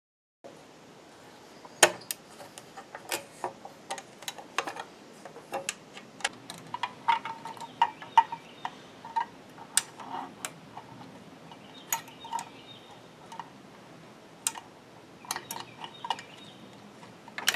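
Irregular sharp metallic clicks and clinks of small metal parts and hand tools being handled during assembly, a few of them ringing briefly.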